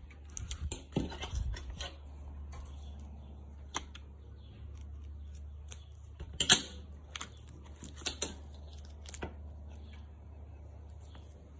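Small clicks and taps of a metal strap tool working at a watch's lugs and the rubber strap being handled, the sharpest click about six and a half seconds in and a few more near eight and nine seconds. A steady low hum runs underneath.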